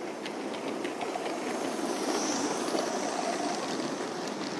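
Gauge 3 model train rolling past on the track: wheel rumble that grows to its loudest about two to three seconds in and then eases, with a run of light clicks from the wheels over the rail joints and a brief hiss near the middle.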